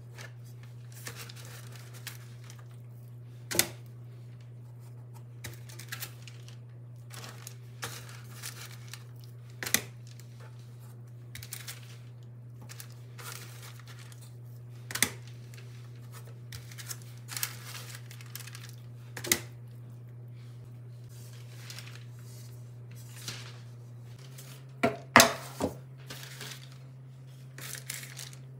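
Kitchen handling noises: scattered light clicks and knocks with soft rustling, and a cluster of sharper knocks about 25 seconds in, over a steady low hum.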